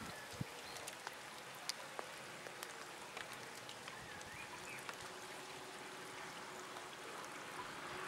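Light rain falling steadily, with scattered sharp taps of drops.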